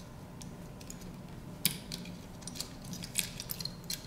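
Small clicks and light scraping as a smartphone's main circuit board is lifted out of its frame, with one sharp click about one and a half seconds in and a run of small clicks near the end.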